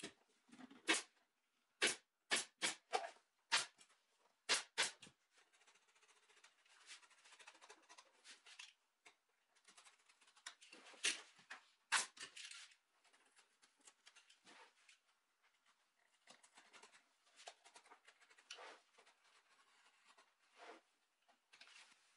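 Pneumatic staple gun firing staples through leather into a wooden seat board: a quick run of sharp snaps in the first five seconds, then quieter rustling and scraping of the leather being handled, with two more snaps near the middle.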